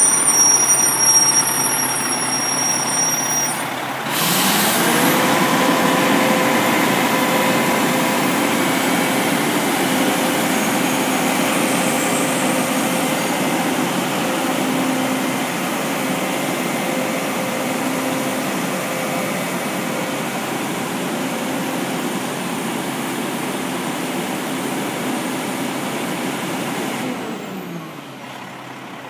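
Fire truck engine speeding up about four seconds in as the aerial ladder is worked, then running steady at raised speed while the ladder lifts. It winds back down near the end. A thin high whine is heard for the first few seconds.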